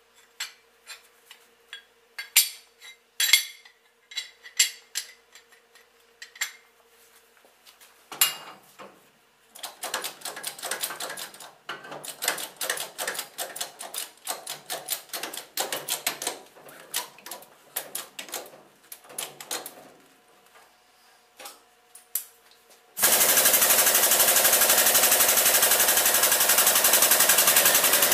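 Steel mold parts clinking as they are set into a benchtop injection-molding press. Then a long, fast, irregular clatter of metal clicks as the mold is clamped with the press's hydraulic bottle jack. About 23 seconds in, a loud, steady mechanical noise starts suddenly as the injection begins.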